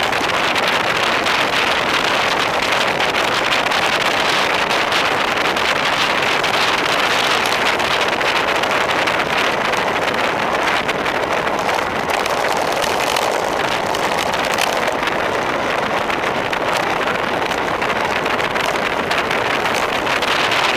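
Steady rush of wind buffeting the microphone of a bicycle-mounted camera during a fast road-bike descent.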